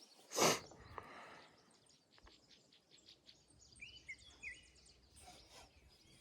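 A few short bird chirps around four seconds in, over quiet creekside ambience, with a brief rustling noise about half a second in.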